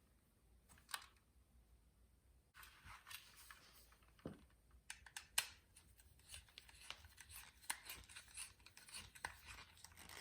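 Faint small clicks and scrapes of hand tools and copper wires being worked at the terminals of an electrical wall socket, at an irregular pace.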